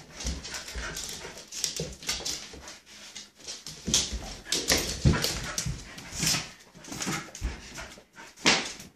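A dog whimpering and yipping in excited play while jumping at a waved towel, amid a run of irregular short scuffling and flapping sounds.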